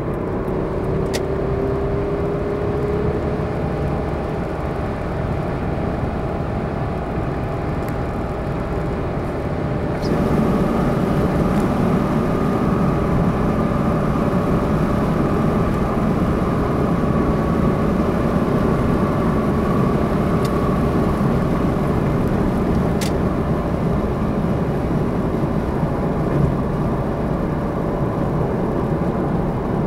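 Car driving at highway speed: steady tyre, wind and engine noise, with faint drifting tones. It steps up a little in loudness about ten seconds in.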